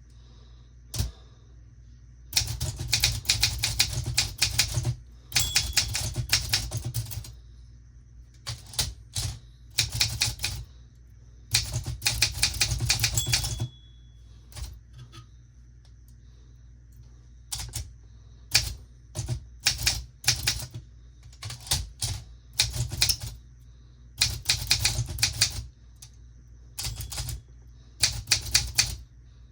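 Olympia SM9 manual typewriter being typed on: bursts of rapid key strikes lasting a second or more, separated by short pauses, with a brief high ring after some bursts.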